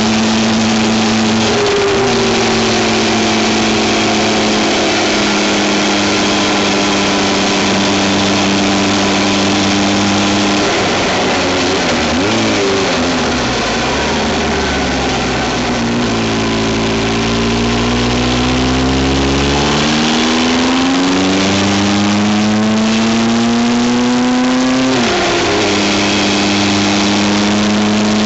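Vehicle engine under way, recorded from an onboard camera with steady wind and road noise. The engine holds a steady note for the first ten seconds or so, then dips and recovers. After that its pitch climbs twice under acceleration, and each climb ends in a sudden drop at a gear change.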